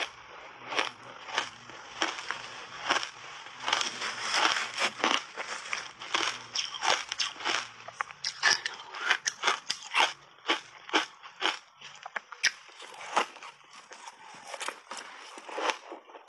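Big mouthfuls of matcha-powdered shaved ice being bitten and chewed close to a clip-on microphone, a dense run of irregular crisp crunches.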